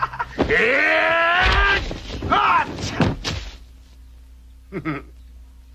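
A man gives a long wailing cry that wavers up and down in pitch, then a shorter cry, with dull thuds about one and a half and three seconds in. After that a low steady hum remains.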